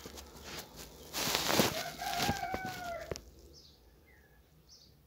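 Rustling and knocks of a phone being handled and set in place, with a rooster crowing once about two seconds in: a single drawn-out call that dips slightly at its end.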